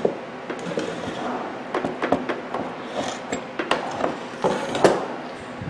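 A series of irregular light clicks, knocks and clinks from handling an opened microwave oven and its parts, with no steady hum.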